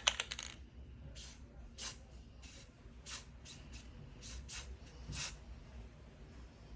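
A series of short, hissy rustles and scrapes, about nine at irregular intervals, from hands working with craft materials at close range.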